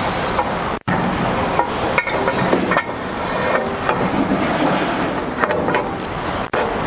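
Steady workshop machinery noise with scattered light metal clicks and knocks, such as a saw's rip fence being handled. The sound drops out briefly twice, near the start and near the end.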